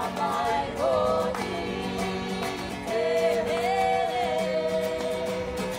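Song with a voice holding long notes over a strummed string accompaniment, music for a Polynesian dance.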